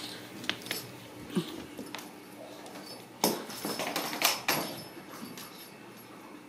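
Ragdoll kittens' paws running on a hardwood floor: a scatter of light taps and knocks, with a louder cluster of thumps a little past the middle.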